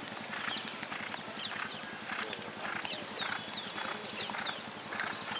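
Hoofbeats of several ridden horses trotting across a dry field: an uneven, continuing patter of hoof strikes, about two clusters a second. Short high chirps sound over it.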